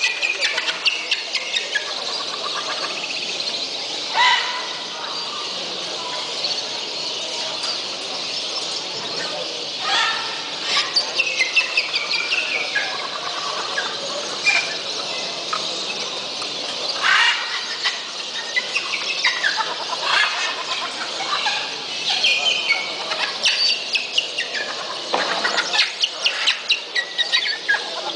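Dense, constant chirping and whistling from many caged birds, with louder single calls standing out every few seconds.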